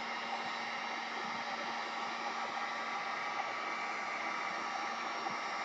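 Handheld electric heat gun running steadily, a rushing hiss of blown air with a low hum under it, as it heats a clear acrylic strip to soften it for bending.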